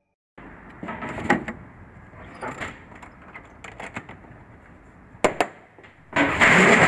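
Hard-shell plastic transport case with aluminium edges being handled: its metal latches and handle click and knock several times, including a sharp double click about five seconds in. A louder rush of scraping noise follows near the end as the case is moved.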